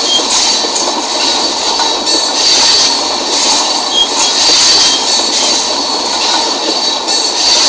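Freight train cars rolling past with a steady rumble of wheels on rail, and thin, high wheel squeal on top. The loudness swells and dips about once a second as the cars go by.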